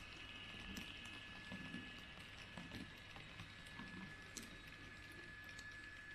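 Model railway freight wagons rolling past, their wheels clicking and knocking faintly and unevenly over rail joints and points, over a steady thin high tone.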